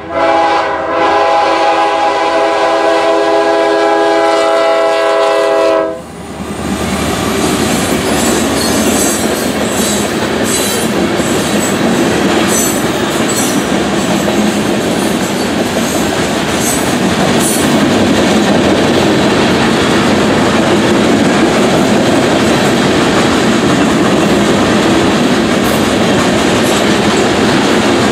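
CSX ES40DC freight locomotive's horn sounding for a grade crossing: a short blast, then a long blast held until about six seconds in. The horn then stops, and the loud rumble and clickety-clack of covered hopper cars rolling over the crossing follows, with scattered metallic clanks.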